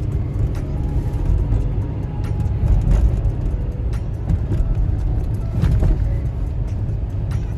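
Steady low road and engine rumble inside a moving car's cabin, with music playing underneath.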